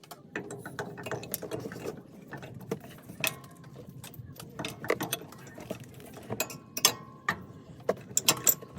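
Irregular creaking and clicking from a Jeep's suspension, with short high squeaks about three, six and a half, and eight seconds in. The squeak's cause is unidentified, with the bushings suspected.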